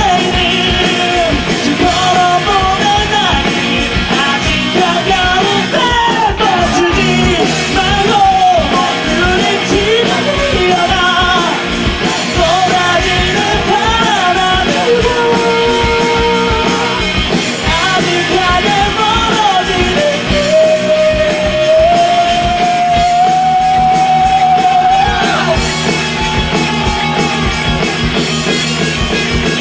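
Live rock band playing: sung lead vocal over electric guitars, bass and drums, with a long held note about two-thirds of the way in.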